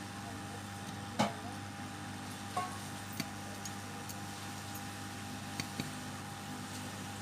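Steady hum of a hot-air rework station's blower running at full airflow, with a few short sharp clicks of tools, the loudest about a second in.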